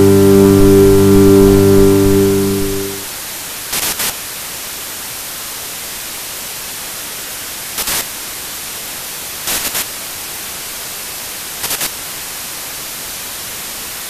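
White-noise TV static hiss, steady, with four short louder crackles at irregular intervals. A held electronic chord sounds over it at first and fades out about three seconds in.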